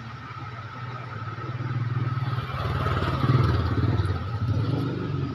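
A motor vehicle engine running nearby, growing louder toward the middle as it comes close, then holding steady.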